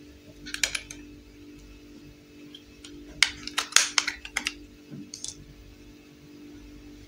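Small plastic clicks and clatters as the battery cover of a plastic toy appliance is pried off and handled. There is a short run of clicks about half a second in, then a denser flurry of clicks around three to four seconds, and one more click near five seconds.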